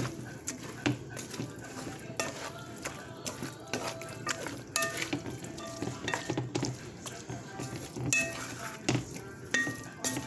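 Wooden slotted spatula stirring plant-based ground meat and a wet blended tomato-and-pepper sauce in a pan, with irregular knocks and scrapes against the pan.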